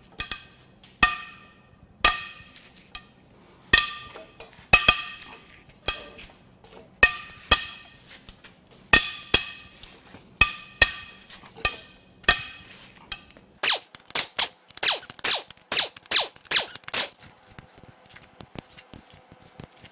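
Tools working the cylinder head bolts of a Toyota 1GR-FE V6: sharp, ringing metal clinks about a second apart. They give way to a quick run of clicks about two-thirds of the way through.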